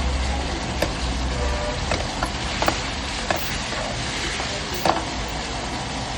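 Chicken Kolhapuri curry sizzling in a pan as it is stirred, with a steady hiss and a low rumble. The ladle knocks sharply against the pan about six times.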